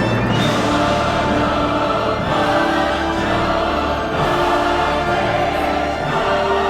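Dramatic soundtrack music with a choir singing long held notes over an orchestral backing.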